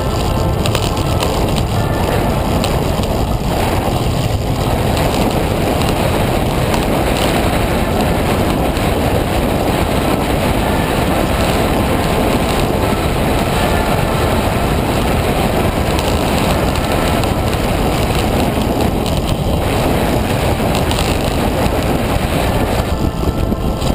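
Steady wind rush over the microphone of a camera mounted on a track bike at racing speed, mixed with the hum of tyres on the wooden velodrome boards.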